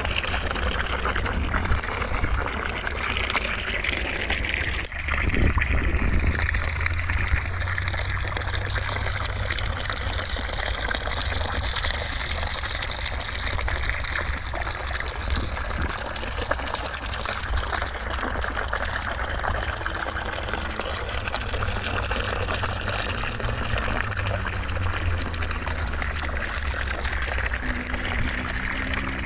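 Steady, even rushing noise of a white-noise track, close to the sound of gushing water, with a brief dip about five seconds in.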